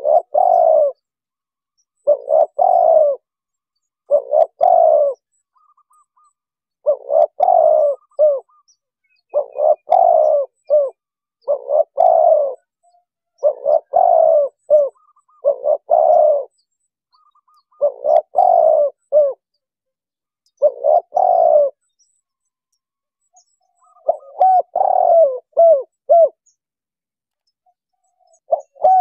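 Spotted dove (tekukur) cooing: short phrases of a few notes each, repeated about every two seconds, with a longer pause a little after the middle.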